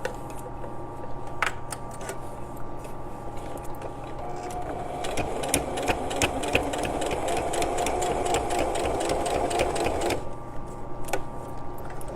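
Sewing machine stitching a straight seam, its needle clicking rapidly over a steady motor hum; it gets louder about four seconds in and stops near the end.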